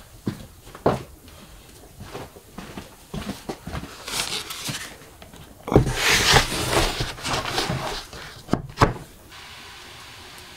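A wooden cutting board carrying a large raw cut of meat set down on a wooden table with a heavy thud, amid rustling handling noise, followed by two sharp knocks of wood on wood.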